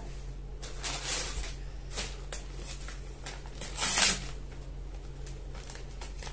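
Rustling and crinkling of a garment's packaging being handled and opened, in several short bursts, the loudest about four seconds in.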